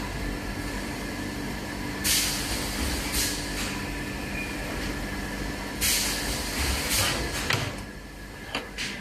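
Refrigerator door gasket welding machine running with a steady hum, with several short bursts of air hiss, the loudest about two seconds in and about six seconds in, and a few sharp clicks near the end.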